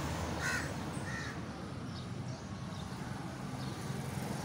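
A crow cawing, two short calls in the first second or so, over a steady low rumble.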